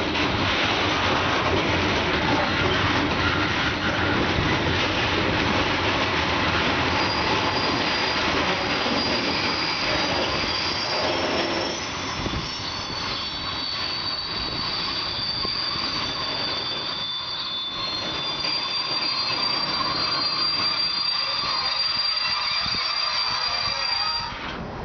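Freight train of flat wagons loaded with steel coils rolling past, with a steady rumble and clatter of wheels on the rails. About a quarter of the way in, a high, thin squeal from the wheels joins in and keeps going to near the end.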